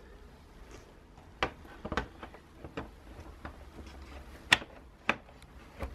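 Scattered light clicks and taps of a clear plastic motorcycle windscreen being handled and pressed onto the mounting nibs of its brackets, about eight in all, the sharpest about four and a half seconds in.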